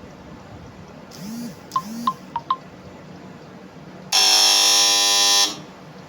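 A few soft chirps and sharp clicks, then a loud, harsh buzz about four seconds in that lasts about a second and a half and cuts off.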